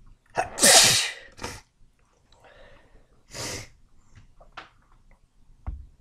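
A person sneezing wetly: one loud, voiced sneeze about half a second in, with a short burst right after it, then a softer breathy stretch and a second, shorter burst. A low thump comes near the end.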